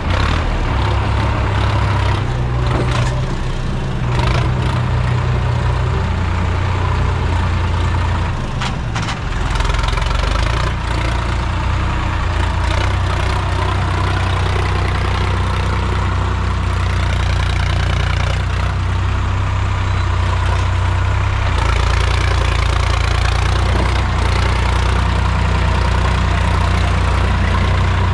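Sonalika DI 745 RX tractor's diesel engine running hard, pulling a trolley fully loaded with soil. The engine note shifts about nine seconds in, then holds steady.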